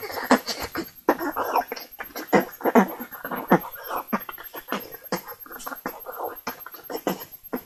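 A child beatboxing into the microphone: a fast, uneven run of mouth-made pops, clicks and hums.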